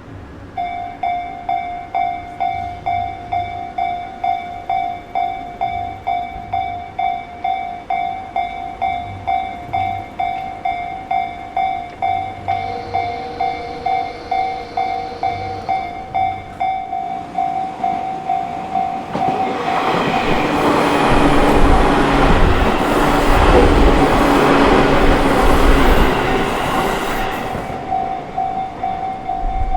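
Japanese level-crossing warning bell ringing about twice a second, with a steady extra tone joining for a few seconds midway. A Tobu Isesaki Line train then passes over the crossing, its wheels on the rails building to a loud rush for about eight seconds before fading. The bell keeps ringing throughout.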